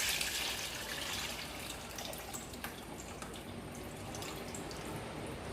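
Tamarind water being strained through a sieve into the rasam pan: liquid pouring and dripping, strongest at the start and easing off into scattered drips.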